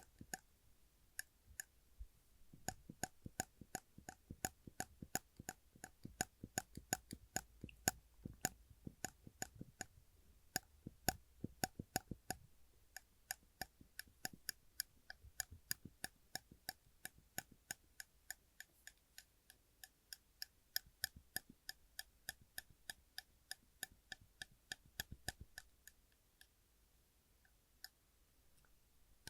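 Large silver metal clip being pressed and released over and over, giving sharp clicks a few times a second, each with a slight metallic ring. The clicks thin to a few scattered ones near the end.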